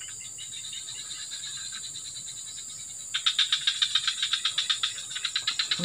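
A chorus of small calling animals from the swamp: a rapid, even chirping of about ten pulses a second over a steady high buzz. It is faint at first and grows much louder about three seconds in.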